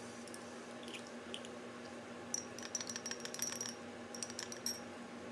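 A spoon clinking against a cup: a few light clinks, then a quick run of clinks lasting about two seconds.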